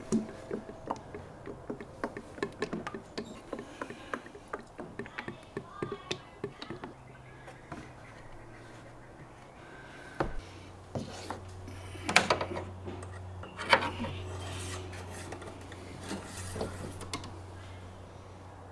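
Fresh engine oil poured from a plastic oil drum through a flexible spout into a funnel on the engine's oil filler, heard as a run of small, faint ticks and taps of the drum being handled. About ten seconds in, a low steady hum starts, with a few sharper knocks over it.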